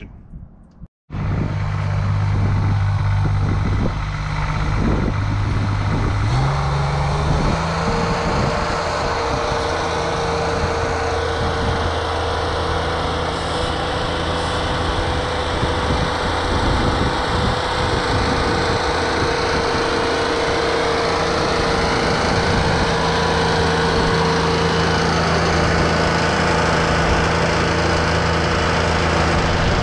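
Ventrac 4500Y compact tractor's engine running steadily while it pushes snow with a front blade. About six seconds in the engine speed rises, then holds steady.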